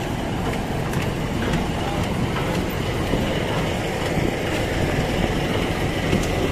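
Steady low mechanical drone of a ferry's engines, with faint footsteps on the metal deck about twice a second.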